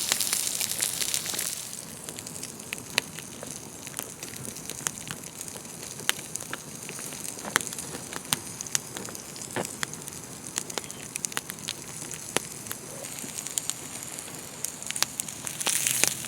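Skin-on duck breast sizzling skin-down on a hot rock as the duck fat renders out, with a campfire crackling in sharp pops throughout. The sizzle hiss is loudest for the first second or so.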